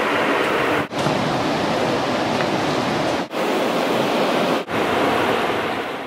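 Steady rushing of the water at Linville Falls, a loud, even noise with no rhythm. It cuts out for a moment three times and fades near the end.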